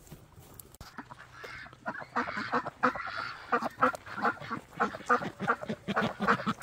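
A flock of domestic ducks quacking, many short calls overlapping in quick succession, starting faintly about a second in and getting louder.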